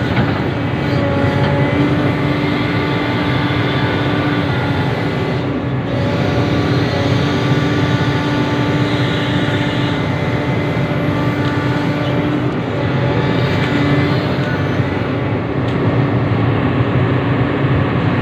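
Sumitomo SH350 hydraulic excavator's diesel engine running steadily at working revs, with steady tones over the engine noise.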